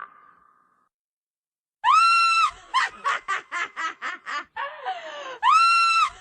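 A witch's evil cackle: a high, held shriek, then a rapid run of short cackles, then a second high shriek near the end. It starts about two seconds in, after a near-silent gap.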